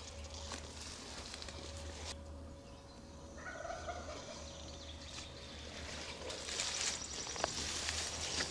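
A wild turkey gobbler gobbling in the distance, one short rattling gobble about three and a half seconds in.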